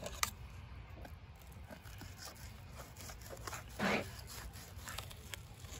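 Fillet knife scraping and sliding along a plastic cutting board as a yellow perch fillet is skinned, with soft ticks and one louder scrape about four seconds in. A faint low rumble sits underneath.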